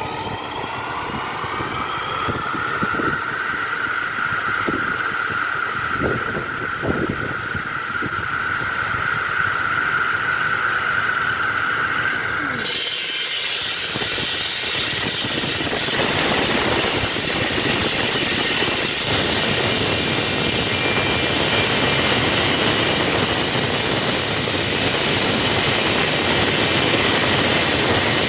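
Concrete-cutting power tool: its motor winds up to a steady high whine, then about halfway through the sound changes abruptly to a louder, harsh grinding hiss that holds to the end.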